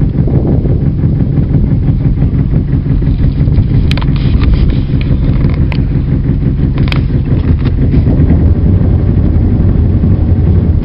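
Small passenger ferry boat's engine running steadily with a low throb, heard from on board. A few short sharp clicks come between about four and seven seconds in.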